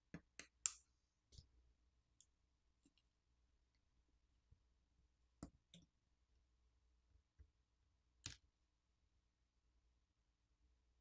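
Sparse small clicks of a pry tool popping the Google Pixel 10's flex-cable connectors off the main board: a quick cluster near the start, two more a little past the middle and one near the end, with near silence between.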